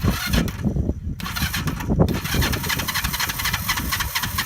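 1977 Yamaha XS400 air-cooled parallel-twin engine sputtering unevenly as it starts, then catching about two seconds in and running with rapid, steady beats. It is a first start after long storage, with old gas that had gone to varnish in the fuel system.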